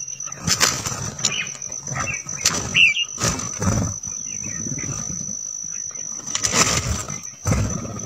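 Red-whiskered bulbuls bathing in a shallow rock pool, splashing water and fluttering their wings in a run of quick, irregular splashes, with a short chirp about three seconds in. A thin steady high-pitched tone runs underneath.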